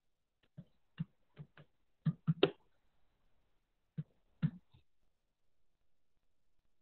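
About ten short, sharp clicks or taps in irregular clusters: seven close together over the first couple of seconds, then a pause and three more.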